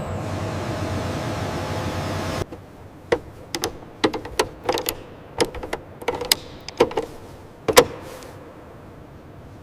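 A steady mechanical hum cuts off abruptly. It is followed by a run of about a dozen irregular, sharp metallic clicks and knocks that ring briefly, with the loudest one near the end.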